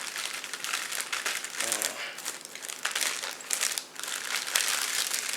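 Packaging being handled and crinkling in irregular bursts while gear is unpacked, with a brief vocal sound about two seconds in.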